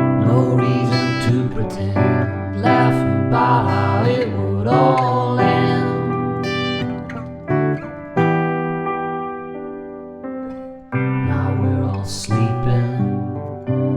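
Indie folk song in an instrumental passage led by acoustic guitar, with sustained chords. The music fades to a lull near eleven seconds in, then comes back in sharply.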